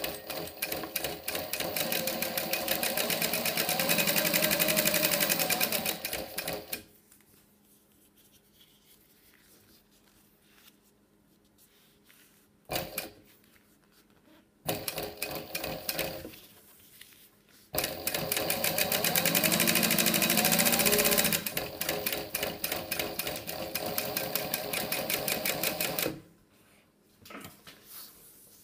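Juki DU-1181N walking-foot industrial sewing machine, driven by a servo motor, stitching through leather and upholstery fabric. It runs in several bursts of rapid, even needle strokes, the longest about eight seconds, with quiet pauses between them.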